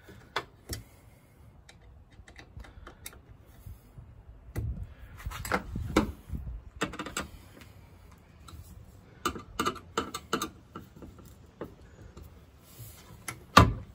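Scattered small clicks and knocks of hand work fitting a 1984 Corvette's fuel door and its hinge screws. A sharp click just before the end is the loudest sound.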